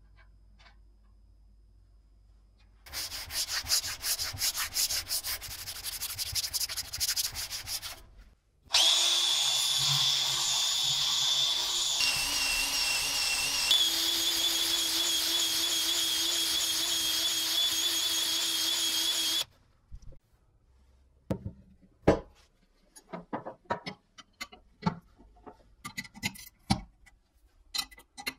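Fast rasping strokes, then a small power tool spinning a sanding drum against a steel plate with a steady whine, sanding out the plate's centre hole; the pitch shifts a little twice. After it stops, sharp metal clicks and taps from a wrench on nuts and bolts.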